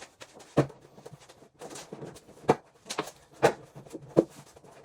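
A series of sharp knocks and clunks, about five over a few seconds, spaced unevenly.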